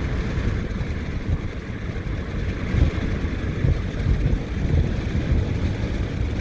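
Car on the move heard from inside the cabin: a steady low rumble of engine and tyres.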